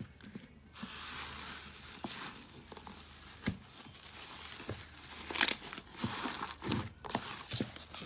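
Slime being squeezed and stretched by hand: a crackling, hissy texture with many small sharp pops and clicks, the loudest pop about five and a half seconds in.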